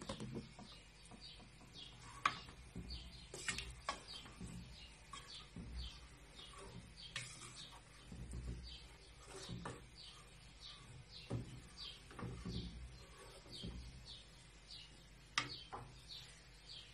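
Wooden spoon stirring tomato sauce in an aluminium pot, with scattered knocks and scrapes against the pot, the sharpest about two seconds in and near the end. Behind it a bird chirps steadily, two or three short chirps a second.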